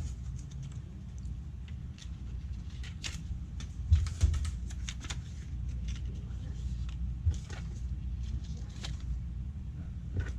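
Scattered small clicks and taps of laptop parts and hand tools being handled, over a steady low hum. Two louder knocks come about four seconds in, and another near seven seconds.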